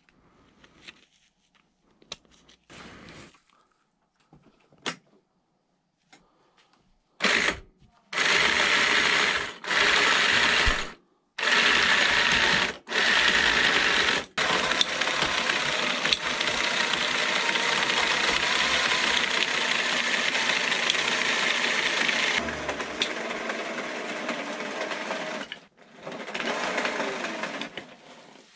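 A power tool's motor run in several short bursts, then held on for about eleven seconds, with a last short run near the end.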